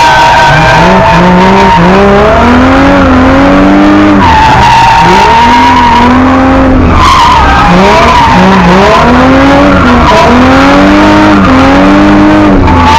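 Car engine being revved up and down over and over, its pitch rising and falling about once a second, with tyres squealing as the car drifts on the skid pan.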